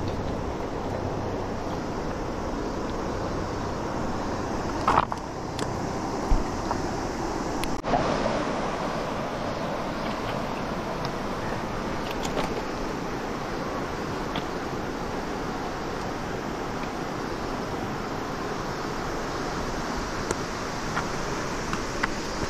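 Steady rush of a river flowing over stones, with a few short knocks and clicks about five to eight seconds in.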